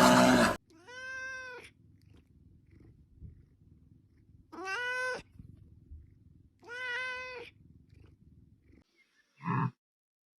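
A domestic cat meowing three times, each meow about a second long and a few seconds apart. A louder animal sound cuts off just at the start, and a brief low call comes near the end.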